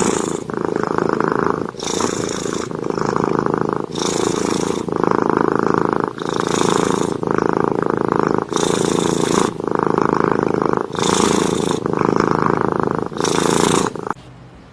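A domestic cat purring loudly, the purr swelling with each breath about every two seconds, seven times over, then stopping near the end.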